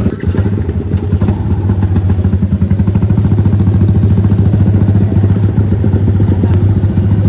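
Yamaha underbone motorcycle's single-cylinder engine running at low, steady revs with a fast even pulse as it rolls off slowly.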